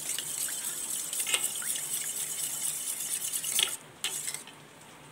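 A steel spoon stirring thin rice-starch water in a steel bowl: the liquid swishes steadily, with a couple of sharp clinks of spoon on bowl. The stirring stops a little under four seconds in.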